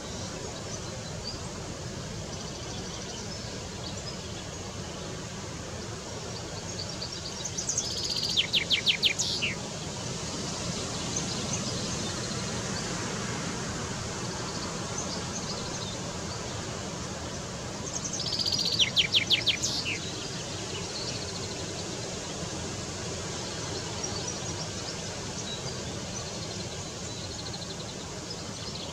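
Male common chaffinch (Fringilla coelebs) singing two phrases about ten seconds apart, each a quick run of repeated high notes lasting about two seconds. The song sits over steady background noise.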